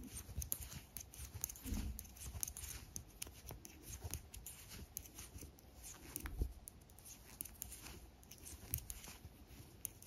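Knitting needles clicking and yarn rubbing faintly and irregularly while purl stitches are worked.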